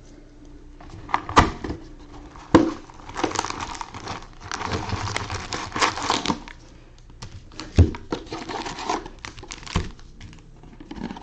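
Plastic shrink wrap being cut and torn off a sealed trading-card hobby box, crinkling in stretches. Several sharp knocks come from the box being handled.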